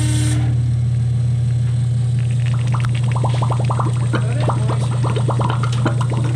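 Small electric pump motor running with a steady low hum while drawing liquid through a hose. About two and a half seconds in, gurgling and slurping sets in as it starts drawing air with the liquid, and the pump stops near the end.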